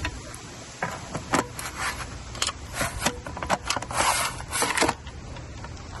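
Clicks, knocks and scrapes of an e-bike battery pack being handled and fitted into the frame's battery compartment, with a longer stretch of scraping about four seconds in.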